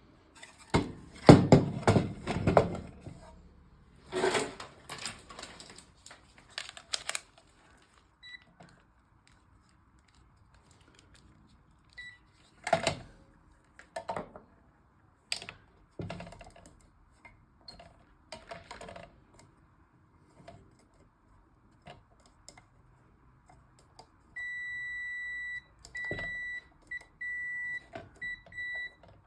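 Irregular clattering and knocks of parts and tools being handled on a workbench. Near the end, a steady high electronic beep sounds in several broken stretches, starting and stopping irregularly, as from a multimeter's continuity buzzer when the probes make and break contact.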